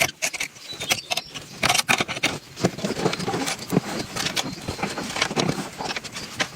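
Irregular clicks and knocks, several a second, of hard objects being handled or struck.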